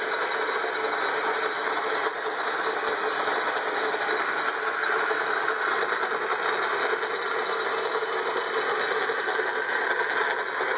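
Old flat-belt-driven Hamilton lathe running at speed: the leather belt on the stepped cone pulley and the spindle turning make a steady, even mechanical noise.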